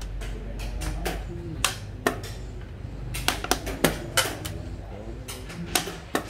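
Xiangqi pieces clacking onto a wooden board and chess-clock buttons being pressed during fast play: a string of sharp clicks and knocks, several coming close together in the middle.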